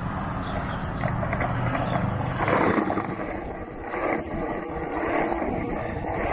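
City street noise: a low steady engine hum of traffic, then, from about two and a half seconds in, louder uneven rushing with wind on the microphone.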